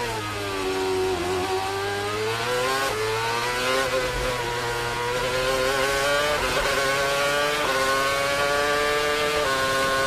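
2013 Red Bull RB9 Formula One car's 2.4-litre Renault V8 accelerating at full throttle out of a slow corner. Its high engine note climbs in pitch through each gear and drops sharply at each quick upshift.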